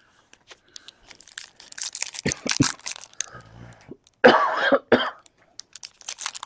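Baseball card pack wrapper crinkling and tearing as it is opened by hand, a dense run of crackles. About four seconds in, a short cough stands out as the loudest sound.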